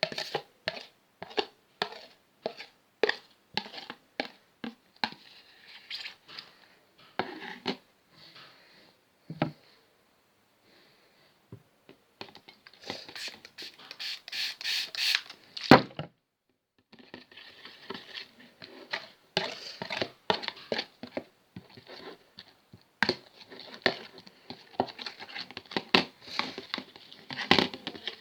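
Glue-and-borax slime being mixed and worked, giving irregular sticky clicks, crackles and squelches, with a sharp click about sixteen seconds in followed by a short pause.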